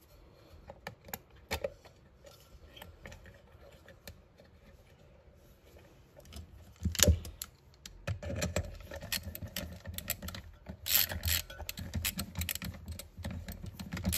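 Small metal parts clicking and knocking as a snowmobile recoil starter is put back together in its aluminium housing. In the second half a socket ratchet clicks in rapid runs, tightening the starter's centre bolt.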